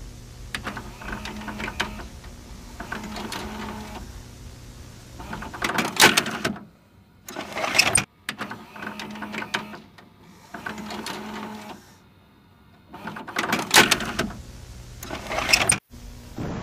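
Harsh electronic static and glitch noise: buzzy, rattling bursts broken by sudden dropouts, the sequence playing through and then seeming to repeat about halfway through.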